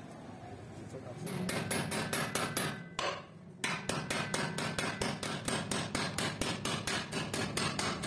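A small hammer tapping rapidly on the steel pin at the top of a shovel's D-grip, about five light metallic strikes a second, to peen it over and lock the wooden handle in place. The hammering starts about a second in and pauses briefly about three seconds in.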